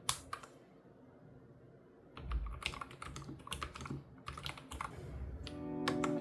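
Keys of a YUNZII L75 low-profile mechanical keyboard with Otemu red linear switches being pressed: a single clack, then an irregular run of key clacks starting about two seconds in.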